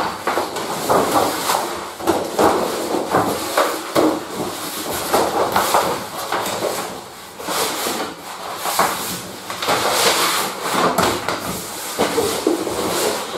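Thick lining paper rustling in uneven bursts as a long sheet is unrolled, lifted and handled on a pasting table.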